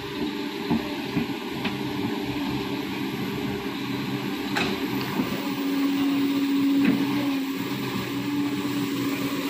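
Kobelco hydraulic excavator running while it digs its bucket into an earth dam bank, engine and hydraulics going steadily. There are a few sharp clicks, and a humming tone grows stronger about six seconds in and fades near the end.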